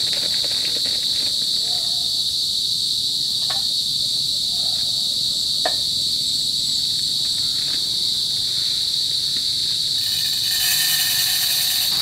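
Steady, high-pitched chorus of insects such as crickets, with two light knocks in the first half and a brief rush of hiss near the end.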